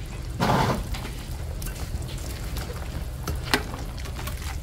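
Onion tipped into a pot of simmering chicken and coconut-water stew, landing with a short splash about half a second in, followed by a couple of sharp utensil clicks against the pot over a steady low hum.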